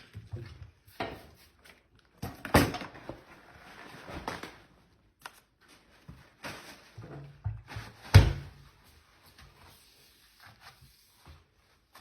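Knocks, scraping and clatter of hard objects being handled, with two sharp bangs, one about two and a half seconds in and one about eight seconds in.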